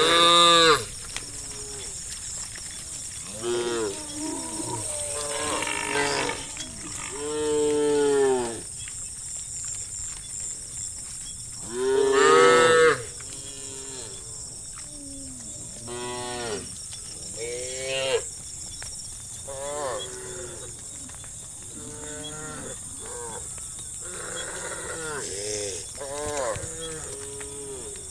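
Several cows mooing again and again, calls of different pitch following one another and sometimes overlapping, the loudest about a second in, around eight seconds and around twelve seconds. A steady high-pitched hiss runs underneath.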